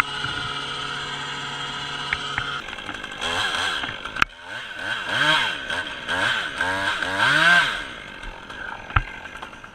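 Chainsaw running at idle, then revved up and down repeatedly for about five seconds while cutting a notch in the tree, before dropping back near the end. A sharp click cuts through in the middle and another near the end.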